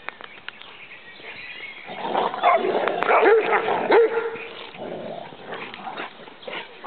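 Rhodesian Ridgebacks playing rough together and barking. The barking is loudest between about two and four and a half seconds in, with quieter scuffling before and after.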